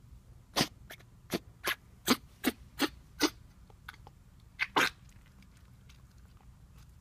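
Twelve-week-old Jack Russell Terrier puppy coughing: a quick run of about eight short, sharp hacks, then two more close together a little over a second later.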